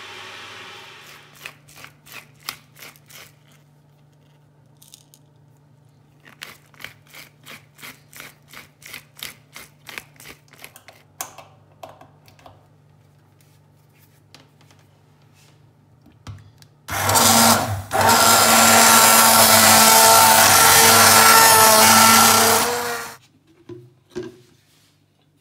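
A pepper mill grinding over the soup pot in a run of quick clicks, about three a second. Then an immersion hand blender runs loudly for about six seconds, with a short break near its start, puréeing the cucumber soup, and cuts off abruptly.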